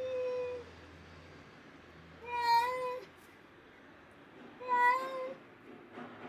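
A cat meowing three times, short pitched cries a couple of seconds apart, the first one softer than the other two.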